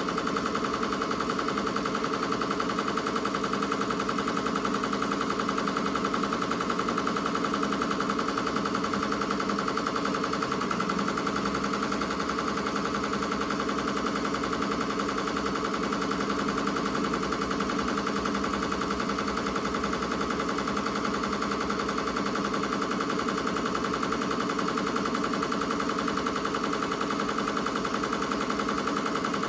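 Ricoma MT-2002-8S multi-needle embroidery machine stitching a design into a terry-cloth towel, with a steady, rapid clatter of the needle mechanism that runs without a break.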